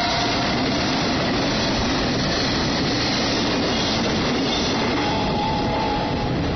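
Freight train's tank wagons rolling through the station at speed: a loud, steady rumble and rattle of steel wheels on rail, with a thin wheel squeal near the end. The noise falls away about six seconds in as the last wagon clears.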